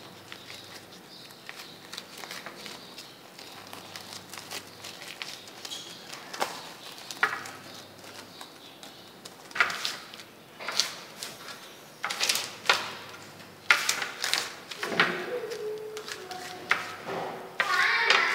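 A clear plastic sheet rustling and crinkling as it is handled and peeled off a tray, with a run of sharp crackles in the middle. A voice talks briefly near the end.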